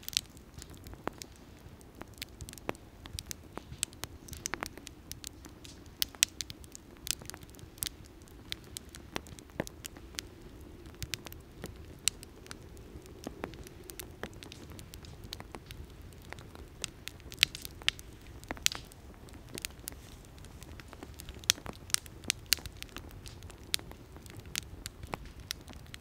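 Wood campfire crackling and popping at irregular intervals, some pops sharp and loud, over a low steady rumble of the flames.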